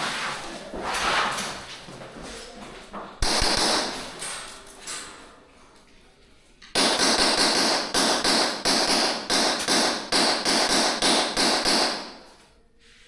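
Airsoft gunfire: a short burst about three seconds in, then a run of sharp rapid cracks, about four or five a second, lasting about five seconds.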